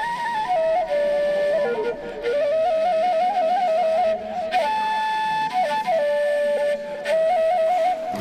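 Background music: a solo flute playing a wandering melody that steps up and down in small ornamented turns, with a few held notes and short breaks between phrases.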